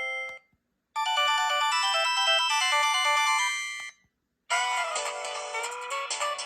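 Preloaded ringtones on a Sanyo SCP-8100 mobile phone playing one after another. One ends at the very start, then a quick melody of short notes runs from about a second in to just before four seconds and stops. After a brief gap another ringtone begins, its notes sliding in pitch.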